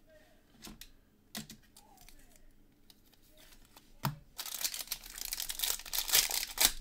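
Trading card pack wrapper being torn open and crinkled by hand: a couple of light taps, a sharp click about four seconds in, then loud tearing and crinkling to the end.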